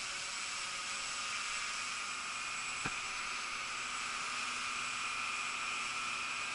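Walkera QR X350 PRO quadcopter's electric motors and propellers running steadily in flight: a steady hiss with a few held whining tones. One short click about three seconds in.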